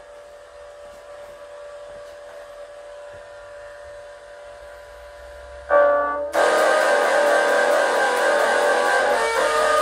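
A faint steady drone of a few held notes, then about six seconds in a loud chord strikes and heavy distorted electric guitar strumming carries on.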